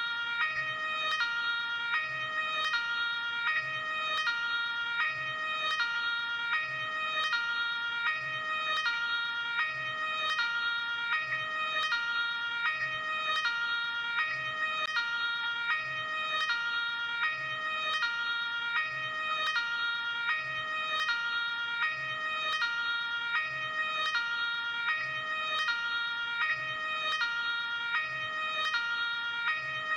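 Luxembourg ambulance two-tone hi-lo siren, switching evenly between a high note and a lower note, each held about three quarters of a second, repeating steadily.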